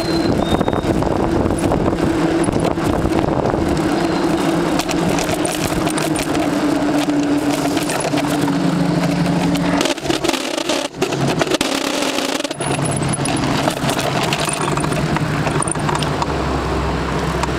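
Soap box derby car's wheels rolling over asphalt and then concrete, a loud continuous rumble with rattling, heard from a camera mounted on the car's front wing.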